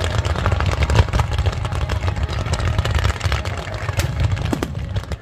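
Fireworks bursting in quick succession: a continuous low rumble of booms with many sharp crackles, easing off near the end.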